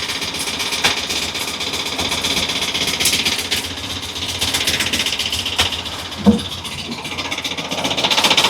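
Ford 6.8-litre V10 gasoline engine idling rough with a fast, heavy mechanical clatter, misfiring on cylinders 1, 6 and 10 and shaking. Its noise sounds like a matraca rattle.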